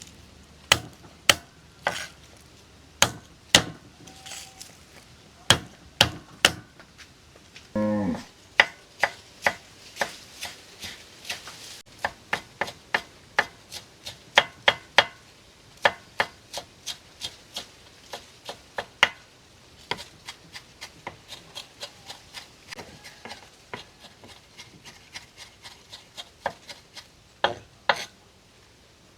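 Knife chopping on a wooden cutting board: a long run of sharp chops, spaced out at first, then falling into a steady rhythm of about two to three a second. A brief falling-pitched sound about eight seconds in.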